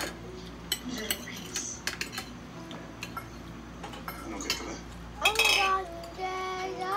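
Metal spoons and forks clinking and scraping against ceramic bowls and plates as people eat, a scattered series of light clicks. About five seconds in, a voice joins with drawn-out held notes.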